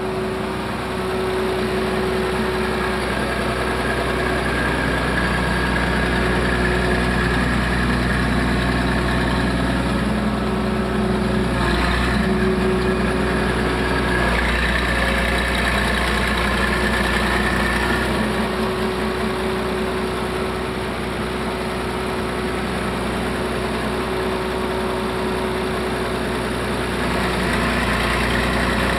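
Diesel engine of a 1974 Poclain SC 150 tracked hydraulic excavator running steadily while the upper body swings round. A high whine comes in a few seconds in and fades out past the middle.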